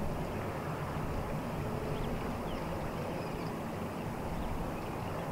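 Steady outdoor background rush, with a few faint, short, high chirps.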